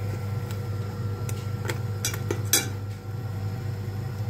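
A metal spoon and a metal pie tin clinking and scraping against the wire rack in a halogen cooker's glass bowl as the tin is levered out: a handful of short sharp clinks, the loudest about two and a half seconds in, over a steady low hum.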